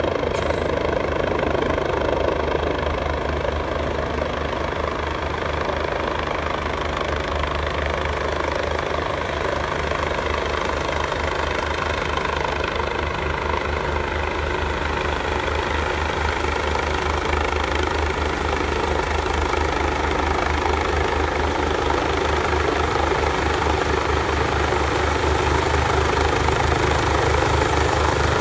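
Medical (MedEvac) helicopter in flight, its rotor beating rapidly and steadily over a steady hum, growing a little louder near the end.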